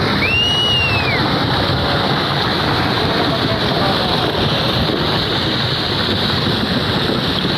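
Landslide debris and muddy water rushing down a slope in a loud, steady roar of noise, with a brief high whistle rising and falling about half a second in.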